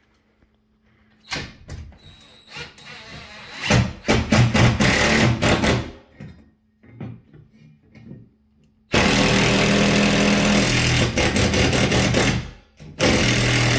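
Impact driver driving a lag screw through a TV wall bracket into a wooden stud, run in three loud bursts: a short one about four seconds in, a longer steady one from about nine seconds, and a last short one near the end, after a few light knocks.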